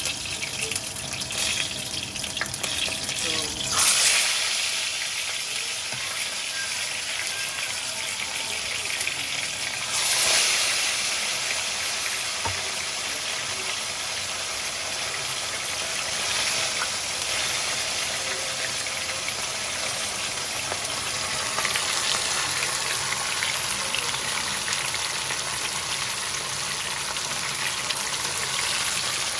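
Hot oil sizzling steadily in a frying pan as tilapia fish is fried with onions, with two brief louder surges of sizzling about four and ten seconds in.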